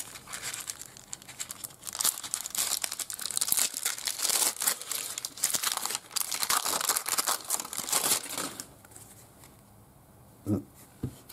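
Foil wrapper of a trading-card pack being torn open and crinkled: dense crackling for most of the first nine seconds, then much quieter, with two short soft knocks near the end.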